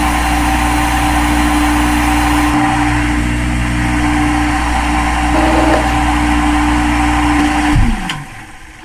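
CNC machine running with a steady motor hum, its spindle then winding down with a falling pitch about eight seconds in.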